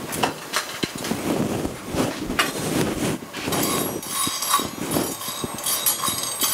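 Rustling and handling noises, then from about halfway through a slotted spatula stirring whole coriander seeds and black peppercorns in a dry nonstick frying pan: a dense run of fine rattling and clicking as the seeds scatter and scrape across the pan while they toast.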